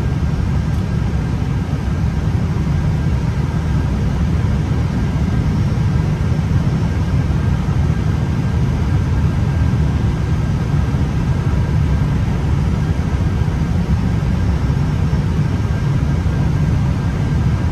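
Steady flight-deck noise of an Airbus A320 on final approach: a low, even rumble of airflow and engines, with a faint steady whine above it.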